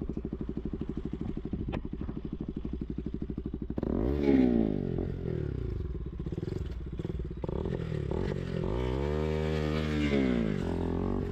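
KTM sports bike's single-cylinder engine idling with a steady, even putter, then pulling away about four seconds in, the revs rising and falling as the bike rides off, with a second rise and fall near the end.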